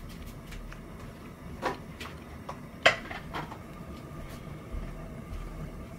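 Pot of cubed potatoes in boiling water, with a few sharp knocks and clinks of kitchenware; the loudest comes about three seconds in.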